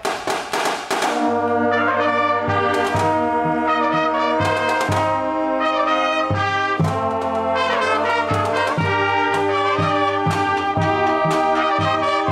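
High school marching band's brass section playing a tune: trumpets and horns in chords over a repeating low bass line. A few sharp hits sound at the start.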